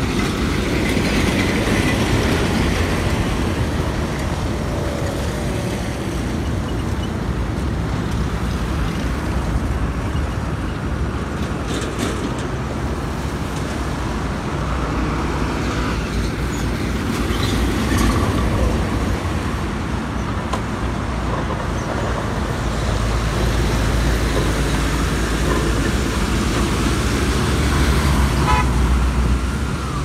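Heavy road traffic passing close by: trucks and cars driving on an unpaved road, with a steady engine rumble that swells as a heavy truck goes by in the second half and a short horn toot near the end.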